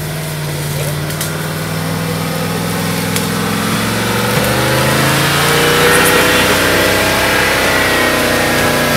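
Engine of a modified off-road 4x4 working at low speed as it crawls over rough ground, getting steadily louder as it comes closer. The revs pick up and rise about halfway through.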